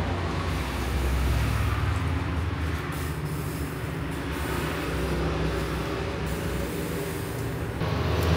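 Liquid poured from an aluminium jug into clay dizi pots, over a steady low rumble.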